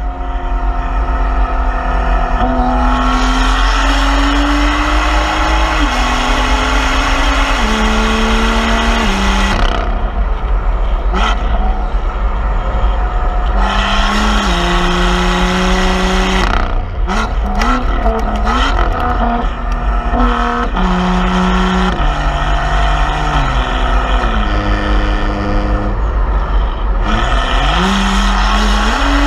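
Exhaust of a 2018 BMW M2's turbocharged inline-six, fitted with an M Performance exhaust and aftermarket downpipes, pulling hard through several gears. The pitch rises in each gear and drops at each shift. A burst of pops and crackles comes about halfway through as the throttle lifts, and wind buffets the microphone at speed.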